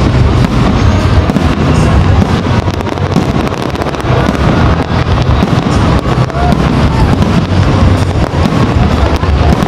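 Aerial fireworks display going off in quick succession: a dense, continuous run of crackling and bangs, loud throughout.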